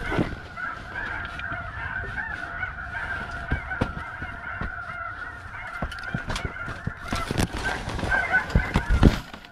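Snow geese calling: a dense, continuous chorus of overlapping high honks, with scattered knocks and bumps, the loudest near the end.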